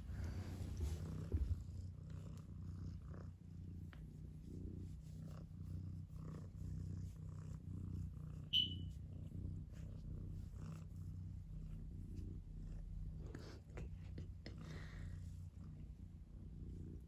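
Domestic cat purring steadily while being stroked, with soft rustling of fur under the hand and one brief high squeak about halfway through.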